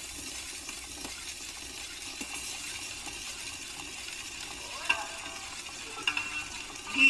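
Surface noise of a shellac 78 rpm record on a gramophone: a steady crackle and hiss from the needle running in the groove before the recording starts. A few faint notes of the recording come in near the end.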